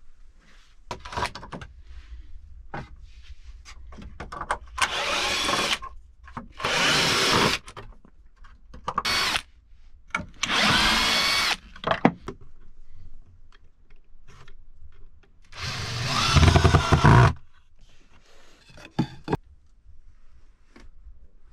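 Cordless drill driving screws into wooden door boards in five short bursts, the last and loudest about two-thirds of the way through. Clicks and knocks of handling between the bursts.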